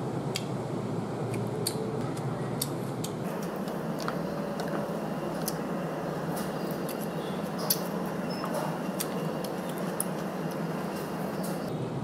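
Chopsticks and a metal spoon clicking against a plastic bowl of noodle soup during eating: irregular sharp clicks, one louder than the rest just past the middle, over a steady background hiss.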